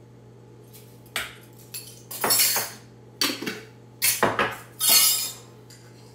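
Metal measuring spoon and utensils clattering against a glass jar and a metal mixing bowl: several quick runs of clinks and scrapes over a low steady hum.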